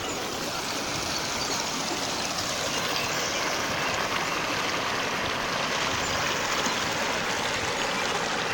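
Steady rush of water from a waterfall, an even hiss without breaks.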